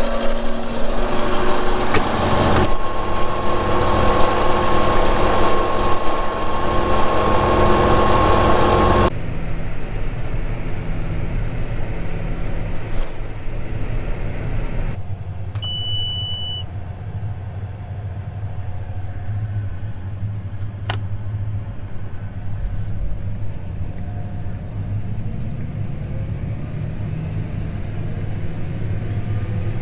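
A loud, steady mechanical whir with a hiss for about nine seconds, then a sudden cut to a tractor engine running steadily at a low hum, with a short electronic beep about sixteen seconds in.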